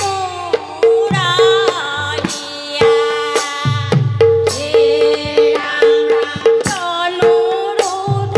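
A women's chorus singing a devotional song to Shiva together, with a large two-headed hand drum playing deep bass strokes that slide down in pitch, and sharp rhythmic beats.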